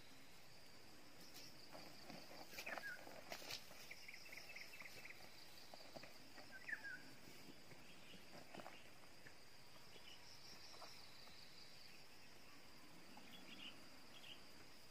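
Faint outdoor ambience: insects calling steadily in a high, pulsing drone, with a few scattered faint clicks and brief chirps.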